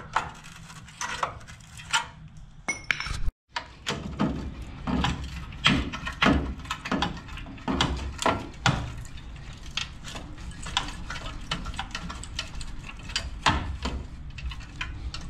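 Irregular metallic clanks, clinks and scrapes of rusted car sheet metal being pried, bent and wrenched loose with a hand tool and by hand, the piece tearing away from the front-end structure of a Honda Civic.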